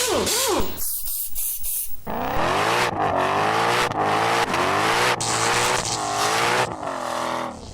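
Car engine accelerating hard. Its pitch rises and dips, with brief breaks about once a second like gear shifts.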